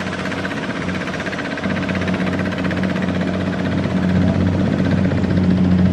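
A two-wheel walking tractor's single-cylinder diesel engine runs steadily under load as it pulls a loaded trailer, its firing beat even and its sound growing slightly louder over the few seconds.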